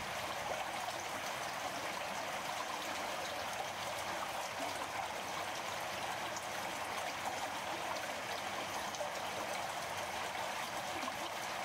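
Steady rush of water flowing through a corrugated culvert.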